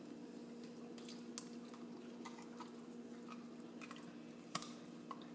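A dog's claws clicking irregularly on a tiled floor as she walks and shifts about, one sharper click about four and a half seconds in, over a steady low hum.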